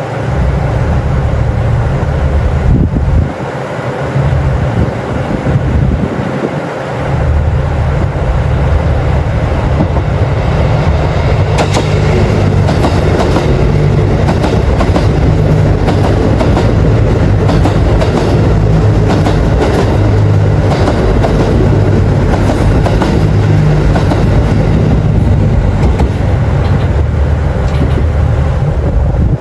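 Cummins diesel engines of a KiHa 85 series railcar running steadily right below. A second diesel train comes in on the next track and passes alongside, with its wheels clicking over the rail joints from about twelve seconds in.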